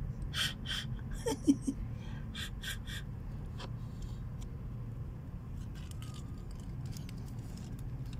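Quick breathy puffs in short runs of about five a second, close to the microphone, over a steady low hum. One brief squeak about a second and a half in is the loudest sound.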